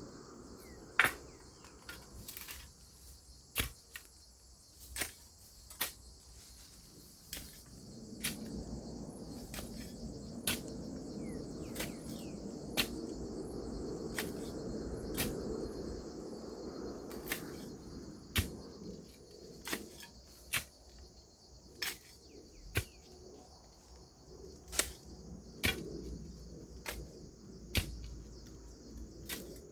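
Hand tool chopping into soil while digging a planting hole, sharp strikes about every second or two, over a steady high-pitched insect chorus.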